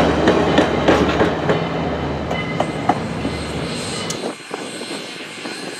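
Passenger train cars rolling past on the track, wheels clicking over the rail joints over a low steady hum. The rolling sound cuts off abruptly about four seconds in, leaving quieter sound with a few faint clicks.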